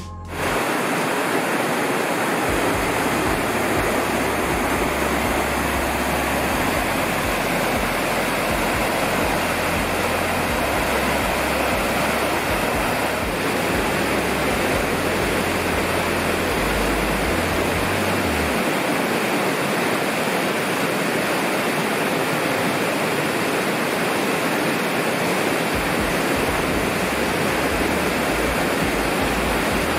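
Fast mountain stream rushing over rocks: a steady, loud rush of water that comes in about half a second in and holds without a break.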